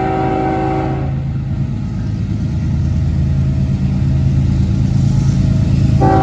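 Diesel locomotive's air horn ending a long chord about a second in, leaving the engine's low steady drone, which grows slightly louder; the horn starts again right at the end.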